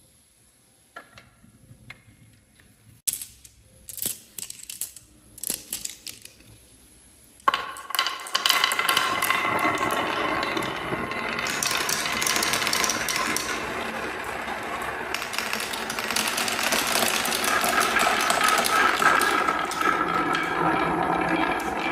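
Marbles clicking a few at a time, then from about seven and a half seconds in a sudden, continuous clatter of many marbles rolling and knocking down a wooden marble run.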